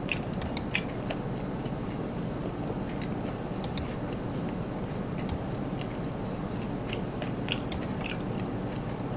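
Close-up mouth sounds of chewing crispy fried chicken, with bursts of crackly crunching near the start, about four seconds in, and again around seven to eight seconds.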